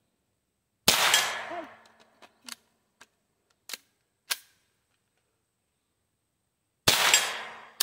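Two .22 LR shots from an AR pistol with a CMMG .22 LR conversion kit, about six seconds apart, each a sharp crack trailing off over about a second. Between them come a few small sharp clicks as the gun is handled and worked; the kit is jamming and failing to cycle.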